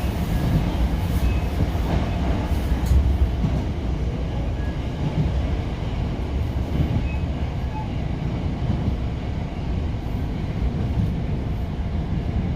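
Kita-Osaka Kyuko 8000 series electric train running, a steady low rumble heard from inside the passenger car.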